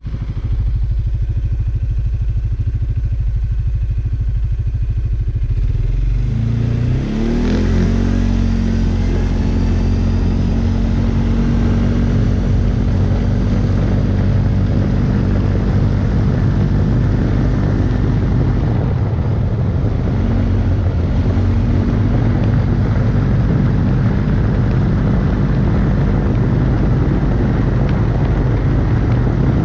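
CFMoto CF 450 S ATV engine running as the quad drives along. About seven seconds in, the revs rise sharply as it speeds up. It then holds a steady pace.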